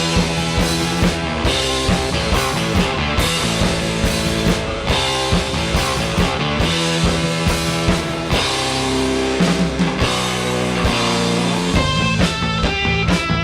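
Rock band playing, with a steady drum-kit beat under electric guitar. A higher, clearer guitar line comes in near the end.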